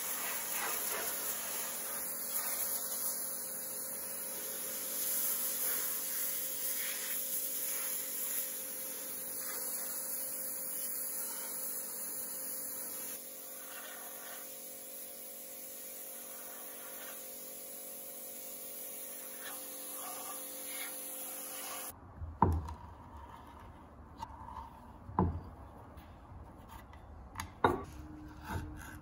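Pressure washer jet spraying cast iron stove panels: a steady hiss with faint steady tones underneath. About 22 seconds in it cuts off, and a few sharp metal clinks follow as a small spanner is fitted onto a rusted nut on the cast iron.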